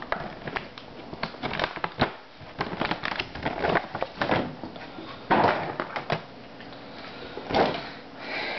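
Plastic packaging crinkling and rustling, with many small clicks and knocks, as a puppet doll is worked free of its plastic tray. There are two louder rustles in the second half.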